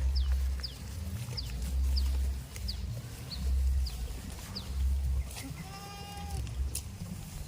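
A goat bleats once, briefly, about six seconds in. Repeated short, high, falling chirps and a low thudding every second or so run underneath.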